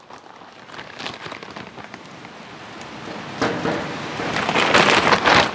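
Hickory wood chunks and sawdusty chips poured from a bag into the smoker's chip pan. Soft bag rustling gives way, a few seconds in, to a dense pattering rattle of pieces landing, loudest near the end.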